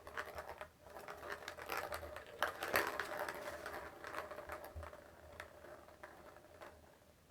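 Irregular close scratching and rustling with many small clicks, busiest a couple of seconds in and thinning out toward the end.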